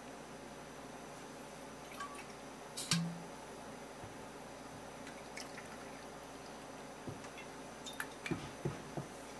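A few scattered light clicks and taps over a steady low room hum, the loudest about three seconds in, with a quick run of small taps near the end.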